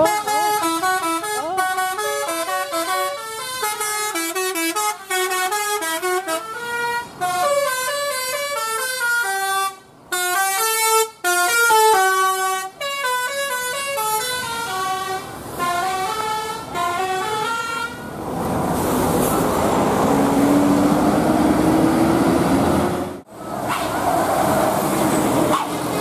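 Bus telolet horn, a set of air-horn trumpets driven by a DAV tune module, playing a fast melody of stepped notes for about eighteen seconds. Then a bus engine drones, rising in pitch as the bus accelerates, and a few more horn notes sound near the end.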